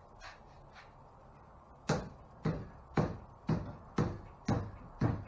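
Seven sharp knocks, about two a second, each fading with a short ringing tail: a PVC pipe tiller extension being struck on its end to drive it onto an outboard motor's tiller handle.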